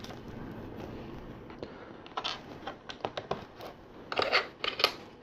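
LEGO bricks being handled and pressed together: scattered small plastic clicks and taps, starting about two seconds in and busiest near the end.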